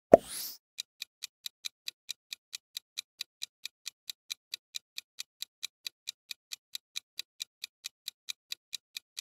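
Countdown-timer sound effect: an even, fast clock ticking, about four to five ticks a second, counting down the time to answer a quiz question. It opens with a short sound-effect hit as the question comes up.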